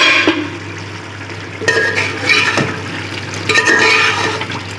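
Metal utensil sounds against an aluminium cooking pot: a clatter at the very start, then two short bouts of scraping and clinking about two seconds apart, over a steady low hum.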